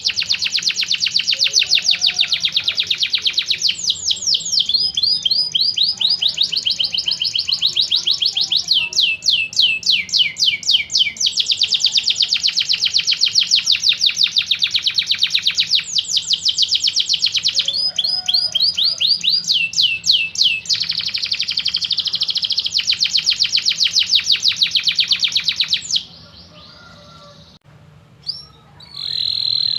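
Domestic canary singing a long song of very fast trills, switching to a new repeated phrase every few seconds. The song breaks off about 26 seconds in, with a short phrase near the end.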